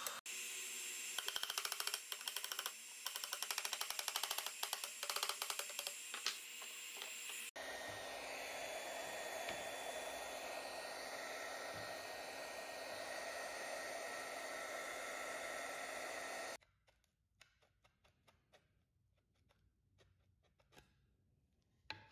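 Heat gun blowing steadily while a metal putty knife scrapes and clicks at a drawer's dovetail joint, softening and prising loose the old glue. Later the heat gun runs on alone, then stops about two-thirds of the way through, leaving a few light knocks of the loosened wooden drawer parts being handled.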